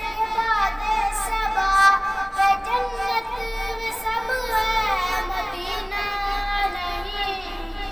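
A boy singing a naat, a devotional Islamic song, with long held notes that waver and turn in pitch.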